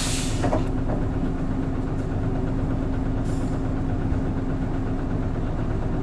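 Hino Blue Ribbon City Hybrid bus running steadily, heard from inside the passenger cabin as a constant low hum with a steady drone. A short hiss sounds at the very start and a fainter one about three seconds in.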